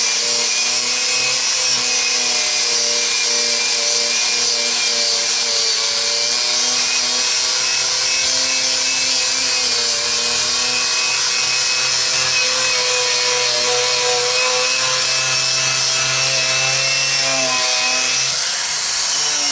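Electric angle grinder running steadily against a caboose's riveted metal roof. It is a continuous motor whine over a gritty hiss, and the pitch wavers slightly as the pressure on the roof changes.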